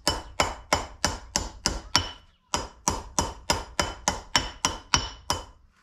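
Steel hammer blows driving a new bearing outer race into a feeder wagon's wheel hub: sharp, ringing metallic strikes, about three to four a second, with a short break about two seconds in.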